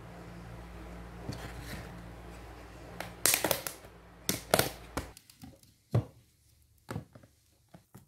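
Hand-handling noises: a run of sharp knocks and clicks, with a few single knocks spaced about a second apart, over a steady low hum that cuts off about five seconds in.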